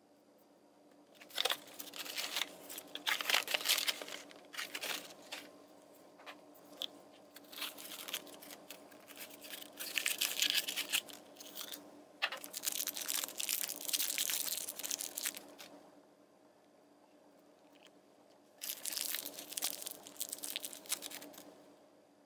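Plastic toy packaging being crinkled and torn open by hand, in three bursts with short pauses between.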